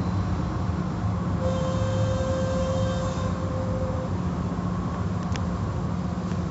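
Automatic car wash tunnel machinery running, heard from inside a car: a steady low mechanical hum with a wash of noise over it, and a thin steady whine that comes in for a couple of seconds in the middle.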